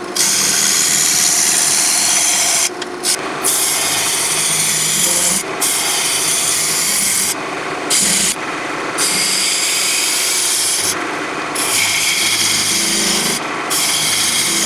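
Lathe gouge cutting a spinning apple wood blank, a loud steady scraping hiss broken by several short gaps as the tool comes off the wood.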